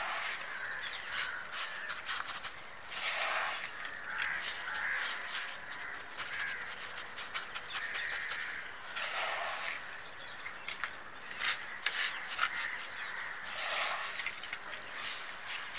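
Coarse river sand scattered and patted over wet potting soil by a hand in a plastic glove: gritty crunching clicks with plastic rustling. A bird calls three times in the background, several seconds apart.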